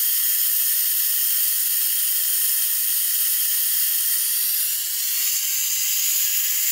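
Compressed air hissing steadily out of a quad tyre's valve with the compressor's air chuck clipped on, as the tyre is let down.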